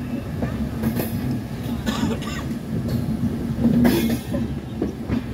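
Indian Railways express train running slowly, heard from its open doorway: a steady low rumble of wheels on track, with a few brief sharp clacks or screeches from the wheels about one, two and four seconds in.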